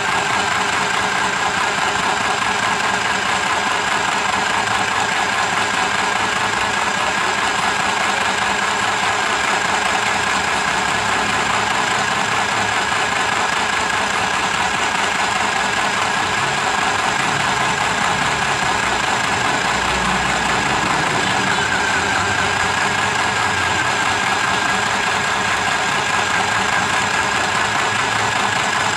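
Mini electric sewing machine running steadily under its foot pedal, stitching a trouser hem with a continuous loud mechanical hum.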